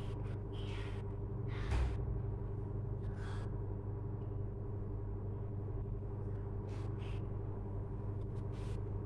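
A steady low motor-like hum, with a few brief faint rustles and clicks from hands working a crochet hook through cotton yarn.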